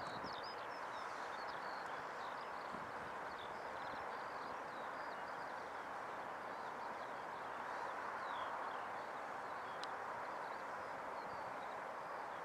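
Small songbirds chirping repeatedly in quick short notes over a steady rushing background noise.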